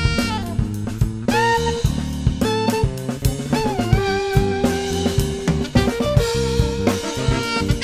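Small band playing an instrumental groove: a saxophone plays a lead line of held notes that bend and waver, over a drum kit with snare and kick, electric bass and keyboard.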